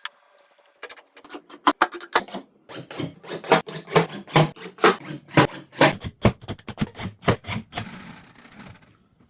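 An irregular run of sharp wooden knocks and clicks, about two to three a second, as pieces of wood are handled and tapped in woodworking, with a brief softer scraping hiss near the end.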